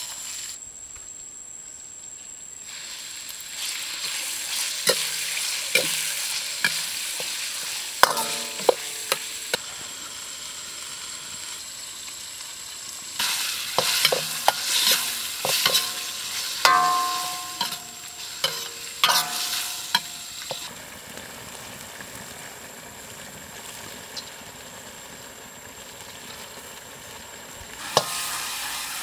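Food sizzling in a steel wok while it is stir-fried with a metal ladle, the ladle scraping and clanking against the wok. The clanks come in clusters, some of them ringing, over a steady frying hiss.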